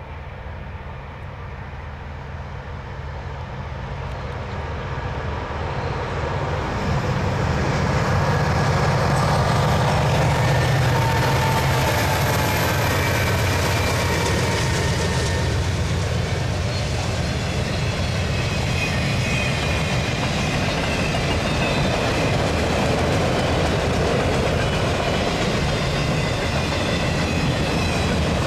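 A Canadian National diesel freight locomotive grows louder as it approaches, its engine loudest as it passes about eight to twelve seconds in. After it, autorack cars keep rolling past with a steady clatter of wheels on rail.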